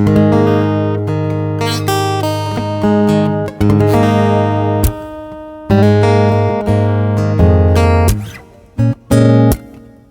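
Headway HJ-V115ASE acoustic guitar being strummed: full chords ring out one after another, then a few short, choked chords near the end.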